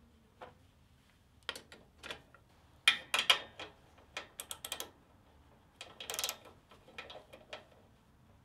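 Metal clicks and clatter of a valve cover being fitted back onto a Briggs & Stratton OHV engine and its screws started with a socket wrench. The sounds come in scattered bursts, loudest about three seconds in and again about six seconds in.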